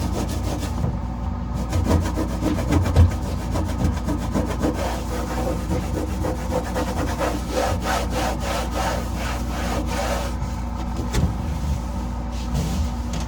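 Cleaning cloth scrubbed hard back and forth over a fridge surface in quick, rhythmic strokes, over a steady low hum.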